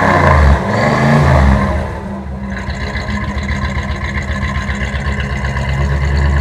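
Jeep J20's carbureted 5.9-litre AMC 360 V8 being revved, the revs falling away about half a second in and rising once more around a second in, then dropping to idle about two seconds in with an even pulse of the firing: the classical V8 sound.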